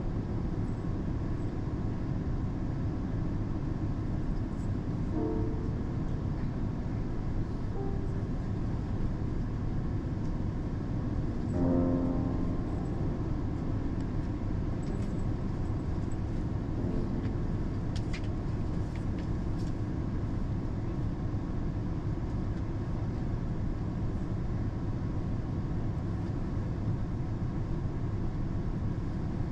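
Passenger train running, heard from inside the carriage: a steady low rumble of wheels on rail. Two brief pitched tones cut through about five and twelve seconds in, the second louder.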